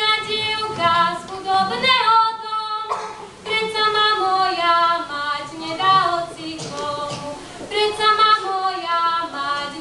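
A woman singing a Slovak folk song solo, one voice carrying a slow melody, with a brief break about two seconds in.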